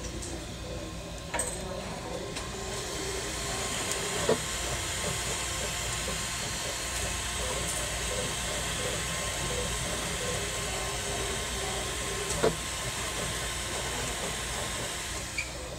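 A 3D printer running: a steady hiss of its fans with the print head's motors moving it along, and a few sharp clicks.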